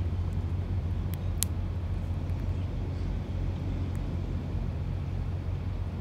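Steady low rumble of motor traffic, with two sharp clicks a little over a second in.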